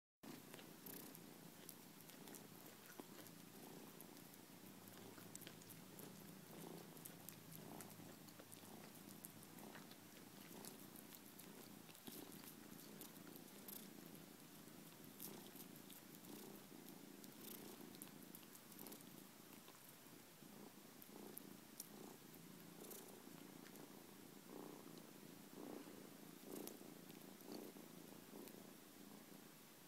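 Kitten purring steadily and faintly, with scattered small clicks as it chews and gnaws on an ear of corn on the cob.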